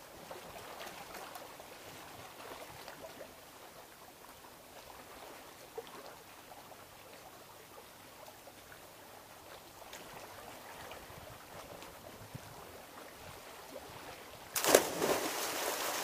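Small sea waves washing and trickling over a rocky shore, then a little before the end a sudden loud splash as a swimmer jumps into the sea, followed by splashing.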